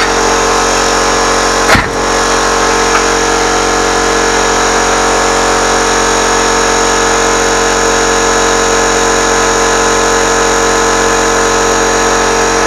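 Metalworking machine tool running steadily under power while cutting a steel pulley, its motor giving a constant hum and whine with a single sharp knock about two seconds in.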